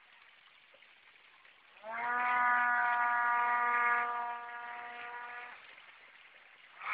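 Electric motor and propeller of a homemade 7.2 V RC hovercraft spinning up about two seconds in. It settles into a steady whine at one pitch, drops in level about four seconds in and cuts off a second and a half later.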